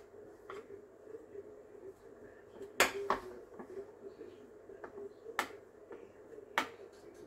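Scattered sharp clicks and knocks of a metal spoon against a baking dish as dough is pressed into it, the loudest about three seconds in, over a faint steady hum.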